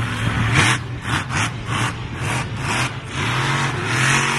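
Monster truck engine running with a steady low note, revved in repeated short bursts as the truck drives at and onto a row of cars.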